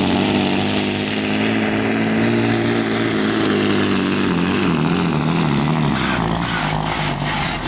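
Volvo pulling truck's diesel engine at full throttle under heavy load as it drags a weight-transfer sled, its pitch slowly sagging and wavering as the load builds. A few short, high falling whistles come in near the end.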